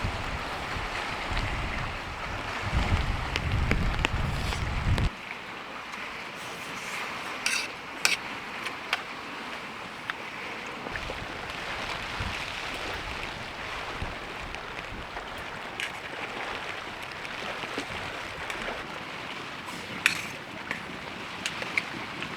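Rain and wind beating on a hot tent's fabric walls, a steady hiss, with low gusts of wind for the first five seconds that stop abruptly. A few sharp clinks of a spoon on a bowl, about eight seconds in and again near the end.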